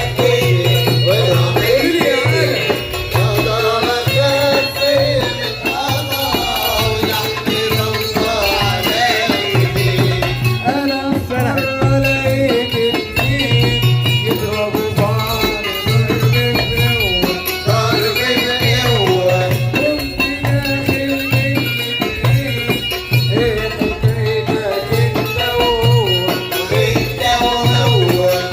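Live Port Said simsimiyya folk music: a plucked simsimiyya lyre carries the melody over a steady, even beat, with rattling hand percussion.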